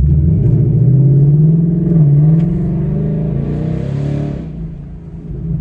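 Ford Mustang GT's 5.0-litre Coyote V8 accelerating hard through its exhaust with a 2.5-inch X pipe in place of the resonator box, the stock active mufflers kept. The revs climb, dip briefly about two seconds in as if at a gear change, climb again, then ease off and the sound gets quieter. It is louder and more throaty than stock.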